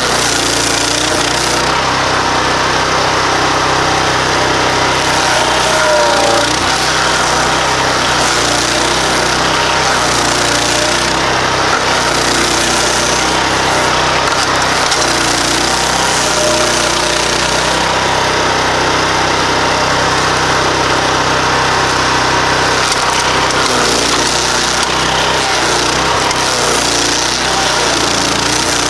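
Stump grinder powered by a 15 horsepower Loncin engine, running steadily under load while its nine-tooth cutting head grinds into a wooden stump.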